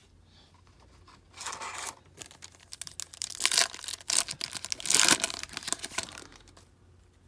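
Wrapper of a trading card pack being torn open and crinkled: a short tear about a second and a half in, then a longer bout of crackly tearing and crinkling that stops shortly before the end.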